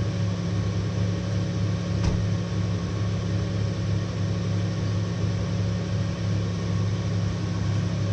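2000 Toyota 4Runner's engine idling steadily, an even low hum, with one faint click about two seconds in.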